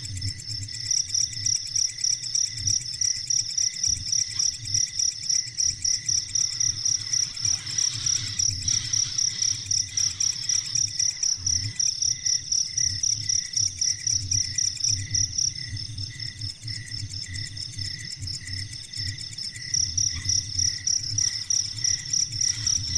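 Insect-like chirping: a high-pitched pulsing call repeated steadily about three times a second, easing off for a few seconds past the middle before picking up again.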